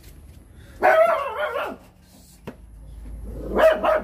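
A dog barking: one bout about a second in and another near the end.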